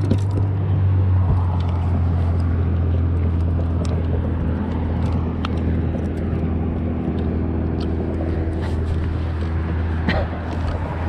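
A boat engine running steadily: an even, low hum that holds one pitch throughout. A few light clicks and knocks sit on top of it.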